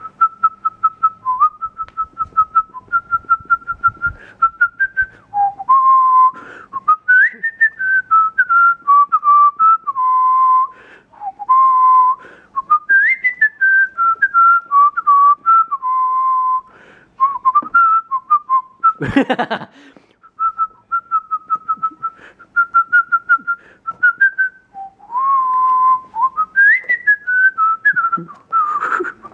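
A person whistling a tune, a clear single line of short stepping notes with phrases that repeat, broken briefly past the middle by a short burst of noise.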